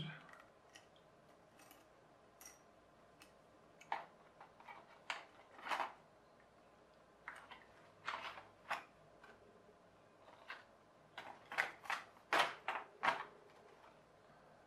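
Hands handling the small plastic and paper parts of a rubber-band-powered model plane kit: scattered short rustles and clicks, coming closer together and louder a little after halfway.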